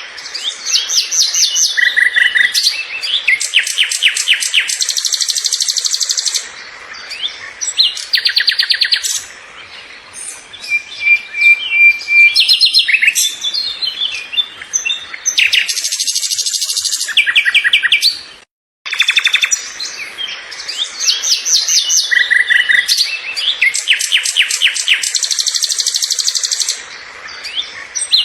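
Several small birds chirping, with rapid trills and quick repeated high notes. There is a brief silent break about two-thirds of the way in, after which the same stretch of song starts again, as in a looped recording.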